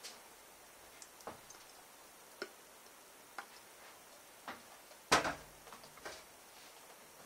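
Several light, separate clicks about a second apart as the multicooker's front-panel buttons are pressed, then a louder knock about five seconds in as the oil bottle is set down on the counter.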